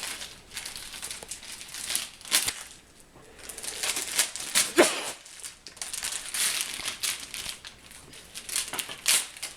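Wrapping paper being torn and crumpled as a present is unwrapped, rustling in fits and starts with a short lull about three seconds in.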